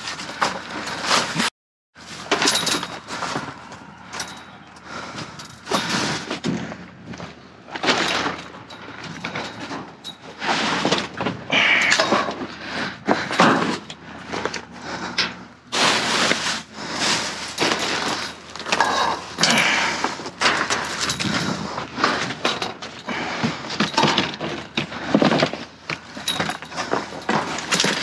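Irregular clattering, knocking and rustling of objects being rummaged through and moved about in a dumpster, with many sharp knocks and bangs.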